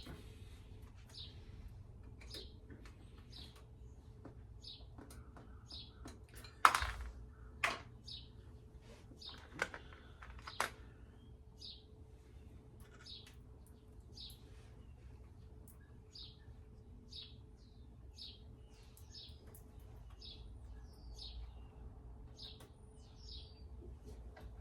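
A small bird chirping over and over, one short high chirp about every second. A few sharp clicks or knocks come in between, the loudest about seven seconds in.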